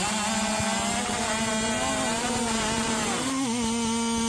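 Racing chainsaw at full throttle cutting through a log. Its engine note climbs as it opens up at the start, then holds a high, steady pitch, with a brief wobble a little past three seconds in.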